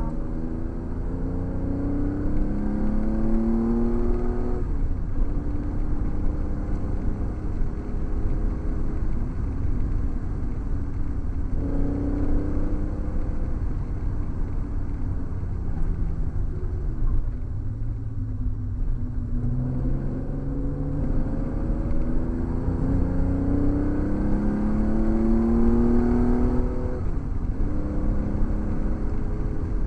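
Porsche 911 flat-six engine heard from inside the cabin, accelerating hard with its pitch climbing and dropping at each upshift. Around the middle it eases off and falls in pitch as the car slows, then it pulls up through the gears again.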